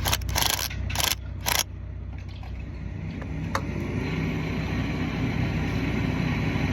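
Three short rasping scrapes of metal parts being worked loose on a stuffing box in the first two seconds, over a steady engine drone that carries on to the end and swells slightly about three seconds in.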